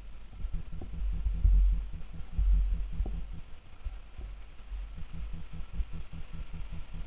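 Freight train with an electric locomotive approaching from a distance: a low rumble with a quick, even throb, swelling twice in the first half.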